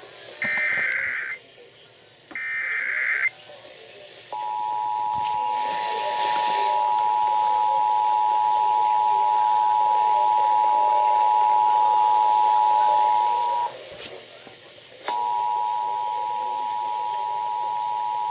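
Emergency Alert System test tones: two short screeching digital header bursts about a second apart, then the steady two-tone EAS attention signal. The attention signal holds for about nine seconds, breaks off with a click, and resumes a little quieter. A faint broadcast hiss runs underneath.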